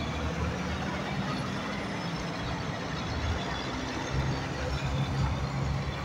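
Loaded dump truck's diesel engine running steadily as the truck drives through a turn and pulls away, a low engine drone over tyre and road noise.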